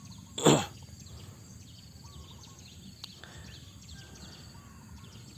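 Outdoor ambience with faint birds chirping. A brief loud noise about half a second in.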